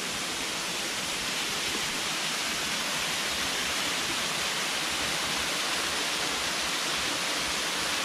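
Small waterfall cascading down a rock face into a shallow pool: a steady rush of falling and splashing water.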